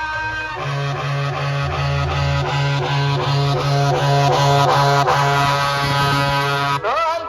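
Loud DJ music played through a large street sound system, with a pulsing bass line and a melody over it, ending in a rising sweep near the end.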